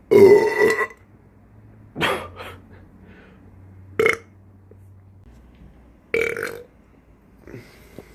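A man belching on purpose after drinking carbonated water: a series of about four belches roughly two seconds apart, the first one the longest and loudest, with a couple of small ones near the end.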